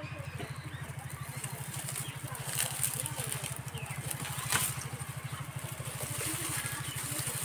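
Dry straw rustling and crackling as it is handled and lit under a clay mud stove, with a few sharp crackles, the loudest about four and a half seconds in. Under it runs a steady, low pulsing hum.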